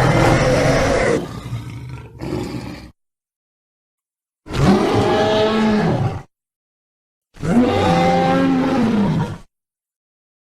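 Cryolophosaurus roar sound effect: three separate roars with dead silence between them. The first fades away about three seconds in, and the next two each rise and then fall in pitch.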